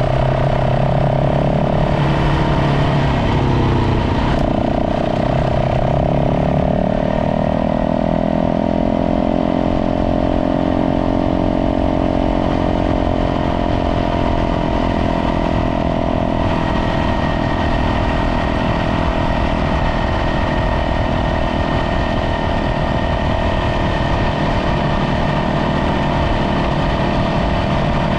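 Dirt bike engine running under way at a steady level. Its note shifts and wavers about two to four seconds in, then climbs slowly over several seconds and holds steady.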